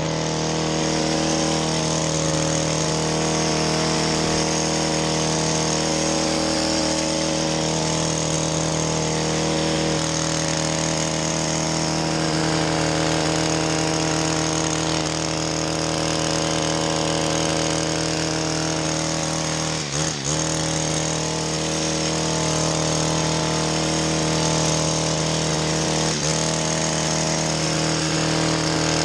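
Petrol hedge trimmer running at steady high revs while trimming a beech hedge. The engine note dips briefly twice in the second half.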